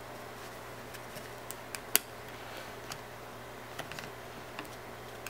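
Scattered light clicks and taps of a clear plastic packaging holder being flexed and handled as an iPod Touch is worked out of it, the sharpest click about two seconds in, over a low steady hum.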